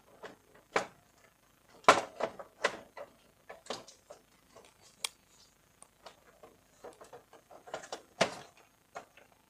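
Irregular clicks and knocks of the plastic parts of a Canon iR2018 copier's paper-feed assembly being worked loose and lifted out by hand, the loudest knock about two seconds in.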